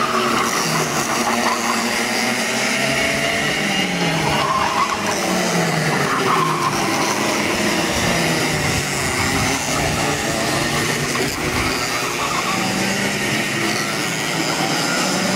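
Several 125 cc two-stroke kart engines racing past, their pitches rising and falling as the karts brake and accelerate through the corners, several engines heard at once.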